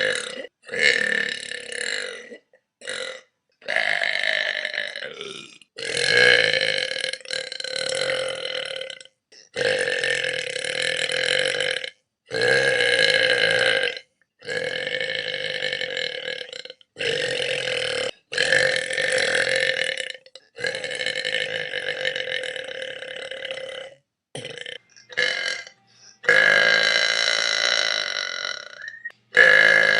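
A string of about a dozen long, drawn-out burps from one person, cut back to back, each lasting one to three seconds and held at a fairly steady pitch, with abrupt cuts between them.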